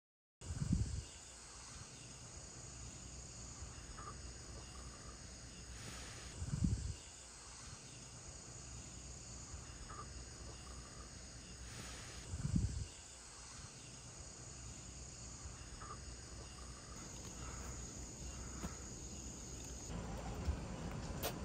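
Steady, faint, high-pitched chorus of insects in summer foliage. Three dull low thumps come about six seconds apart, and near the end a low rumbling noise rises beneath the chorus.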